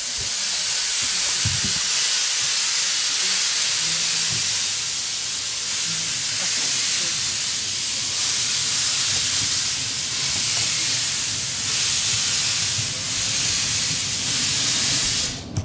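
Loud steady hiss of steam escaping from a narrow-gauge steam locomotive, over the low running noise of the train. The hiss cuts off suddenly near the end.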